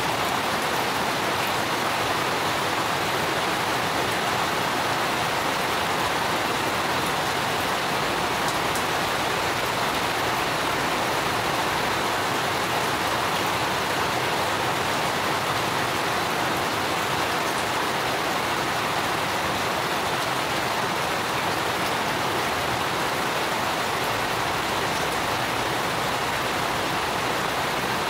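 Steady rain falling, an even hiss with no separate drops standing out.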